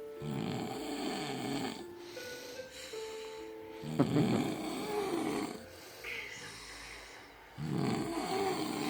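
A man snoring in deep sleep: three long snores, each about a second and a half, coming roughly every three and a half seconds.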